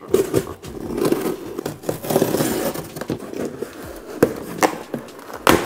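Toy packaging being handled: irregular rustling, crinkling and scraping, with a few sharp knocks, the sharpest near the end.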